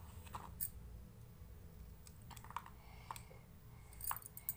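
Faint, scattered small clicks and snaps of fresh green pea pods being split open by hand, with peas clicking into a plastic bowl; a quick cluster of clicks comes near the end.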